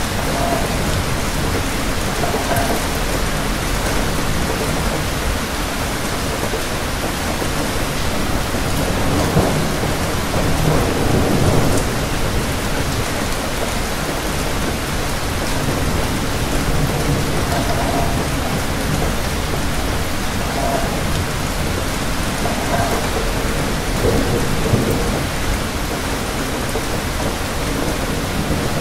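Steady, dense rain noise, with a low rumble swelling up about ten seconds in and again a few seconds before the end.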